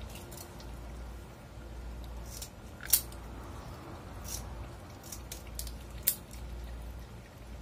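Kitchen scissors snipping at a large whole fish being cleaned, giving several separate sharp clicks of the blades, the loudest about three seconds in and about six seconds in, over a steady low hum.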